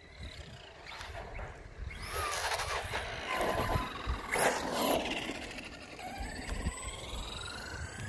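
Radio-controlled monster truck's electric motor whining, rising and falling in pitch with the throttle as it is driven across tarmac, over tyre noise. The whine gets loud from about two seconds in.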